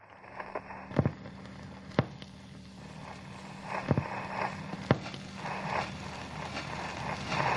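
Old film-reel soundtrack noise: a steady hiss and low hum, with crackle and four loud pops about a second or so apart.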